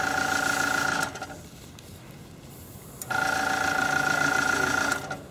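Airbrush spraying paint with its small compressor running: a steady motor hum under a hiss of air, in two bursts, a short one at the start and a longer one of about two seconds starting just past the middle, with near-quiet between them.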